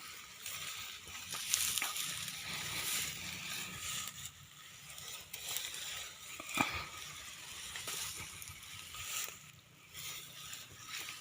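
Shallow water sloshing and splashing, with scattered small knocks and one sharp knock about six and a half seconds in.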